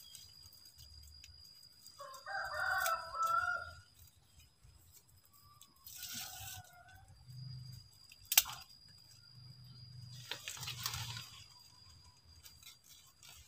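A rooster crows once, loudly, about two seconds in, followed by a fainter, shorter call a few seconds later. A sharp click comes past the middle and a short burst of noise near the end, over a thin steady high tone.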